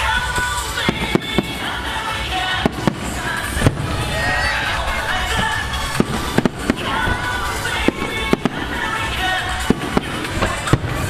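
Aerial firework shells bursting, with about fifteen sharp bangs at uneven intervals, over music that plays throughout.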